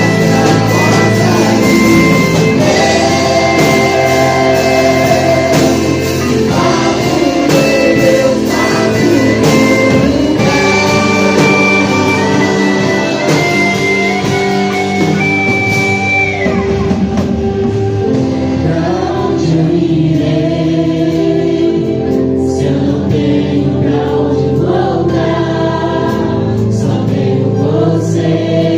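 Christian worship music: a group of voices singing in choir style over instrumental backing, with long held notes. The bright high shimmer drops away about halfway through, leaving the voices and lower instruments.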